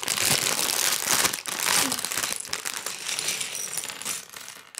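Plastic Lego bricks poured out of a clear plastic bag onto a wooden table: a dense run of small hard clicks and clatters with the bag crinkling, dying away near the end.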